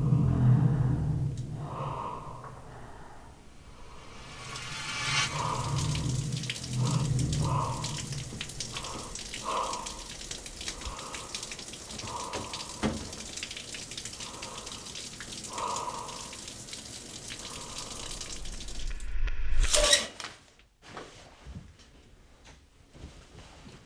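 Shower spray running as a steady hiss of falling water, swelling louder and then cutting off suddenly about twenty seconds in.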